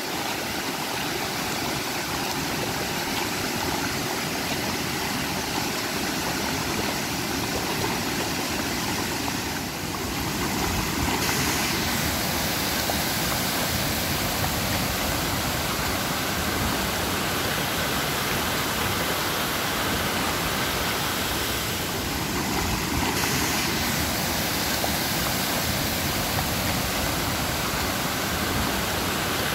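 Waterfall rushing: a steady, even noise of falling water with no let-up.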